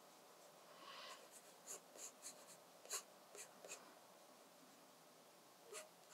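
Pencil scratching on sketchbook paper in short, faint strokes, several between about one and four seconds in and one more near the end, as the outlines of a drawing are sketched.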